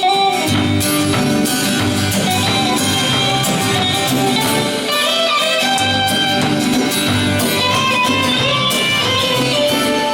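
Instrumental band music without singing, with a steady low beat under many held notes.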